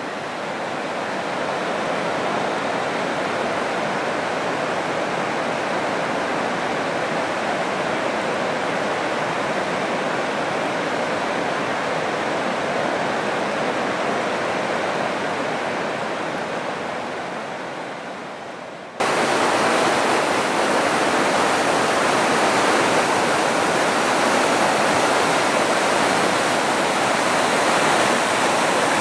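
Rushing river water, a steady hiss of flowing whitewater. About two-thirds of the way through it cuts suddenly to louder, closer rapids.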